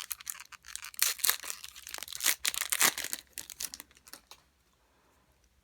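Wrapper of a Topps baseball card pack crinkling and tearing as the pack is opened by hand, in a quick run of crackles that stops about four seconds in.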